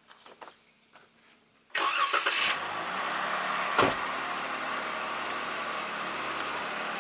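A car engine starts abruptly a little under two seconds in and then idles steadily, with a single sharp click about two seconds after the start.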